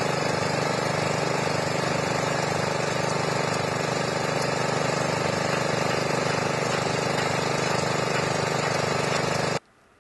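An engine running steadily with an even hum, unchanging throughout; it cuts off suddenly near the end.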